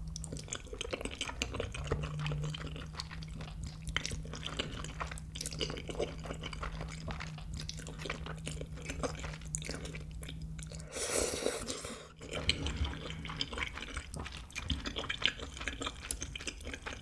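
Close-miked eating sounds: spaghetti noodles in meat sauce being slurped up, then wet chewing with small clicks and smacks. A longer slurp comes about eleven seconds in.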